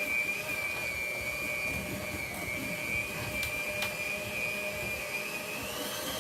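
Electric mixer running at high speed, its beaters churning a bowl of vegetable oil, brown sugar and spices for carrot cake batter: a steady high motor whine that rises in pitch near the end as it speeds up.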